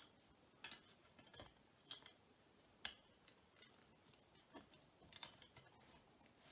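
Faint, scattered small clicks and taps of plastic model-locomotive parts being handled, as a Lima Class 31 bogie is pushed back into its plastic chassis; the sharpest click comes about three seconds in.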